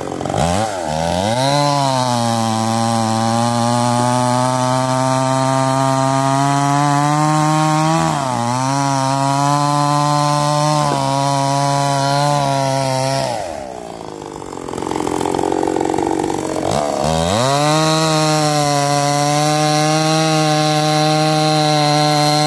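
Two-stroke petrol chainsaw revving up to full throttle and cutting through logs, its pitch sagging briefly under load. About 13 seconds in it drops to idle for a few seconds, then revs up again and keeps cutting.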